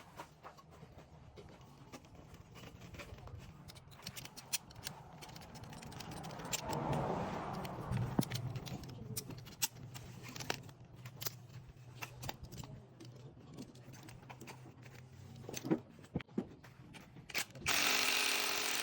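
Tools at work on a car's suspension: scattered metallic clicks and knocks over a steady low hum, with a loud hiss starting about a second before the end.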